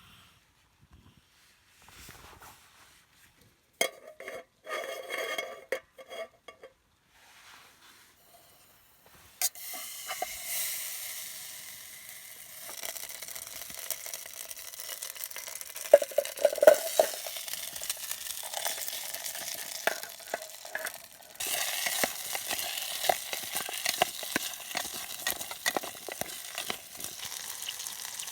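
Food frying in a hot pan, sizzling steadily from about a third of the way in and growing louder near the three-quarter mark, with knocks and scrapes of cookware. Before the sizzle starts there are only scattered clinks and clatters of utensils.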